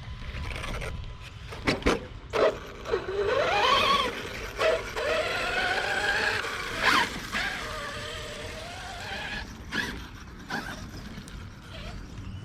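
Arrma Kraton 6S BLX RC truck's brushless motor whining under throttle, rising in pitch about three seconds in and then holding a steady whine, broken by several sharp knocks and clatters of the truck hitting things.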